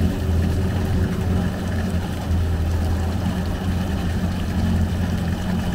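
Yamaha VX1800 HO WaveRunner's 1.8-litre four-cylinder four-stroke engine idling steadily out of the water, during a fresh-water flush that clears salt water from its cooling system.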